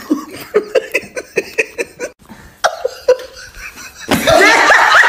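A person laughing in quick short bursts, then breaking into louder, high-pitched laughter about four seconds in.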